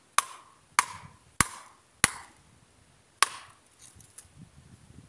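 Five sharp hatchet strikes chopping down into the ground, each with a short metallic ring: the blade is hitting a buried piece of metal taken for a stone. The first four come about every half second, the last after a longer pause, followed by faint rustling.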